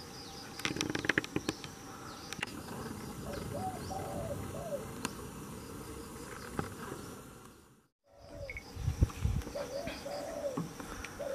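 A dove cooing in short repeated phrases over a steady background of insects and small chirping birds in tropical trees. A cluster of sharp knocks sounds about a second in, and the sound cuts out briefly near eight seconds in.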